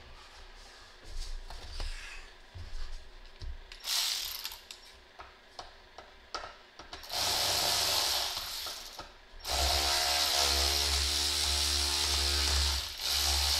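A cordless electric ratchet runs while clamps on the engine's air intake piping are loosened. Light clicks of tool on metal come first, then a short burst of the motor about four seconds in, then two long runs in the second half, the last one with a steady motor whine.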